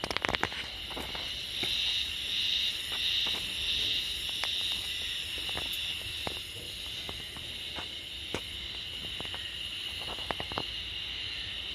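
A few footsteps on hard paving at the start, then a steady high-pitched insect buzz, louder in the first half, with scattered faint clicks.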